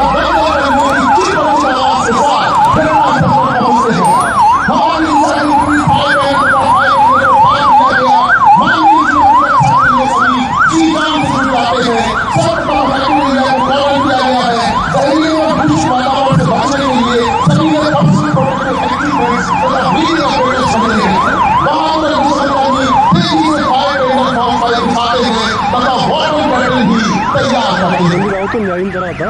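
Electronic emergency siren sounding a fast yelp, rising and falling about three times a second, loud and steady, with a lower wavering sound beneath it.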